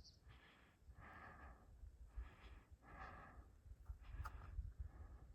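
Faint breathing of a hiker catching his breath after a steep climb: several soft breaths, about one a second.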